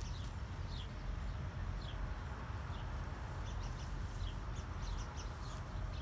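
Small birds chirping: scattered short, high chirps that fall in pitch, over a steady low rumble.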